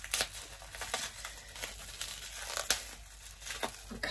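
Bubble wrap crinkling and crackling in irregular bursts as it is handled and pulled at, tightly wrapped around a small jar of oil.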